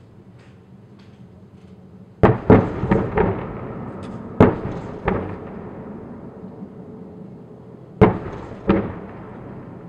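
Distant artillery fire: a run of sharp booms starting about two seconds in, each trailing off in a long rolling echo, with a last pair near the end.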